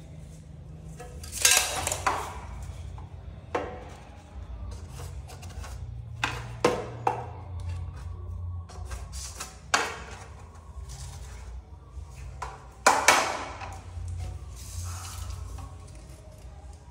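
Hand tools knocking, clinking and scraping on hard tile and masonry surfaces, an irregular series of sharp knocks over a low steady hum.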